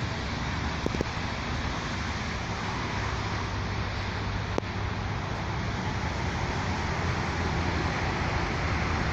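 Steady background noise of road traffic, with a faint click about a second in and another about halfway through.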